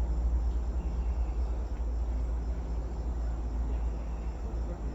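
Steady ambient chirring of forest insects over a continuous low rumble on the microphone.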